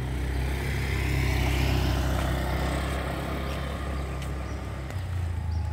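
Low engine rumble of a motor vehicle, loudest a second or two in and easing off toward the end.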